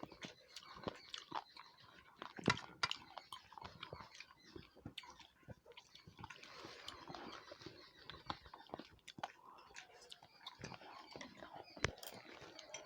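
Close-miked mouth sounds of people chewing food, with many small irregular wet clicks.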